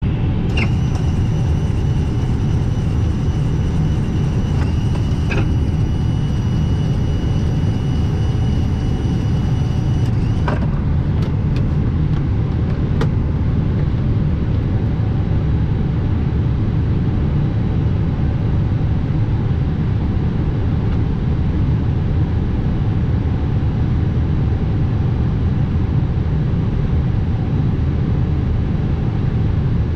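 Steady low rumble inside the cockpit of a parked Airbus A320 before engine start, with a thin high whine that stops about ten seconds in, followed by a few short clicks.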